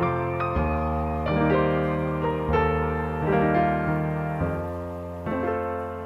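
Background piano music, gentle notes and chords struck about once a second.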